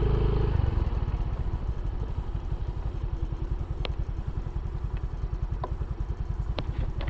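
Motorcycle engine, heard through a microphone inside the rider's helmet, easing off as the bike slows. The steady riding rumble drops away under a second in, and the engine then idles with an even, rapid low pulsing, with a few faint clicks.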